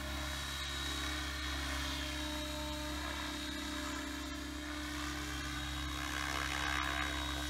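T-Rex 700E electric RC helicopter in flight: a steady whine from its motor and main rotor that swells a little about six seconds in.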